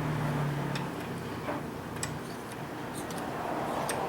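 Irregular light metallic clicks from a ratchet working the shell-plate bolt on a Dillon 550B reloading press, snugged down only enough for the plate to turn smoothly.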